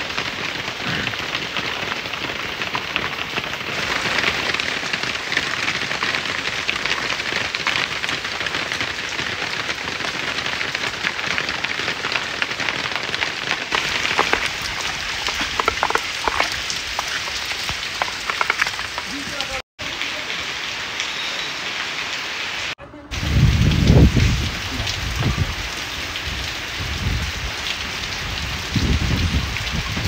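Steady rain falling, an even hiss of drops. It cuts out briefly twice about two-thirds through. After that, heavy low rumbling bursts come in and out and are the loudest thing heard.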